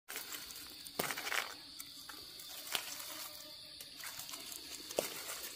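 Faint forest ambience: a steady high insect drone, with a few sharp crackles and rustles scattered through it.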